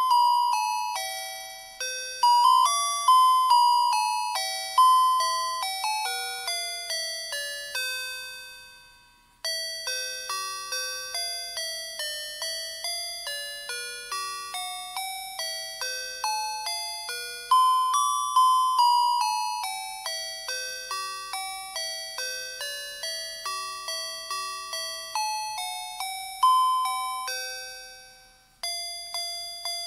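Electronic melody chip of a Christmas-light set playing a carol tune in thin, beeping chime tones, each note struck and fading. The melody dies away about eight seconds in and again near the end, then starts over.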